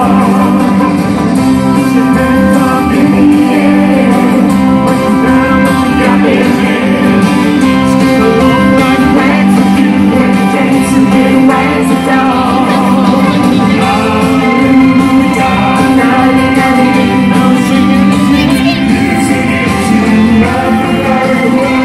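Live children's band playing through a concert PA: singing over electric guitar, drums and keyboard, heard from the audience in a large arena.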